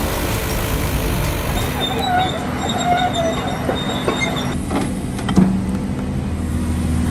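Heavy machinery running with a steady low hum, intermittent high metallic squeals and several sharp metal clanks in the middle.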